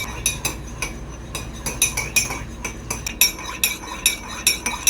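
Metal spoon stirring lime juice and soy sauce in a drinking glass, clinking against the glass in a quick, regular rhythm of about four clinks a second.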